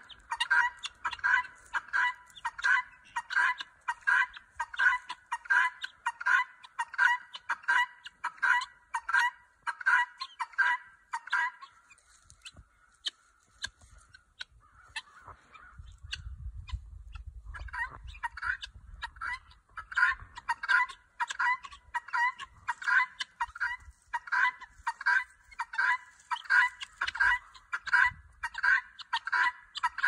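Domestic guinea fowl giving their harsh, rapidly repeated alarm call, about two calls a second, breaking off for several seconds around the middle and then starting up again. The alarm is going with no threat in sight.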